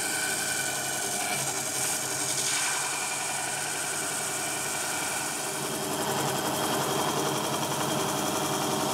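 Drill press spinning a Robo Sander drum sander while a wooden guitar neck blank is pushed against it, sanding the headstock face flush with a straight-edge guide: a steady motor hum with abrasive grinding on wood.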